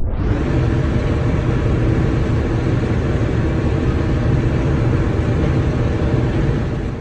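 John Deere 9500 combine running steadily during corn harvest: a constant machine drone with a low engine hum. It fades out near the end.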